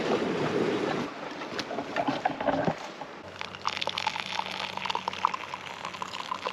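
Hot water poured from a cooking pot into a pour-over coffee filter sitting on a mug, splashing and trickling from about three seconds in. Before that there is a steady rushing noise.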